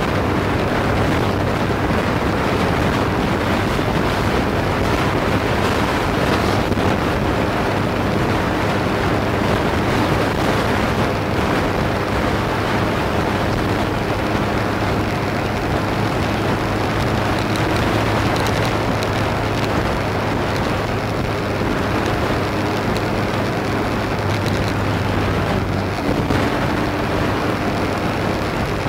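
Motorcycle riding at a steady cruising speed: a constant engine drone under loud wind rush on the microphone.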